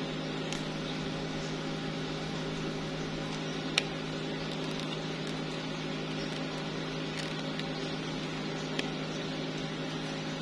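A steady low machine hum, with a few light clicks as a clear plastic plasma lighter is handled; the sharpest click comes about four seconds in.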